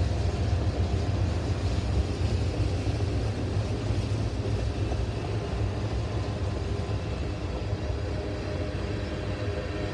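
Mixed freight train of tank cars rolling past, a steady low rumble of wheels on the rails that slowly grows quieter.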